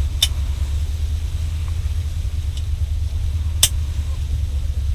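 A steady low rumble, with two sharp clicks, one just after the start and one about three and a half seconds in.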